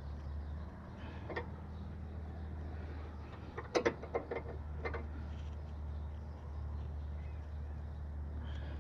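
A steady low hum with a few short, sharp clicks: one about a second in and a quick run of four or five about four seconds in.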